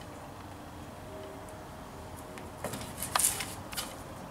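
Kitchen knife cutting through a rolled cinnamon-roll dough log onto parchment paper on a baking tray. It is quiet at first, then a few short rustling scrapes come a little under three seconds in.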